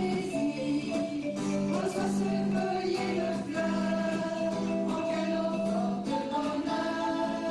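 A song: singing over instrumental backing, with long held notes.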